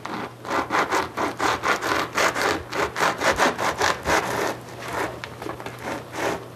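Bread knife sawing back and forth through the crust of a seeded 12-grain loaf, a rapid run of rasping, crunching strokes several a second. The strokes grow softer and sparser over the last couple of seconds.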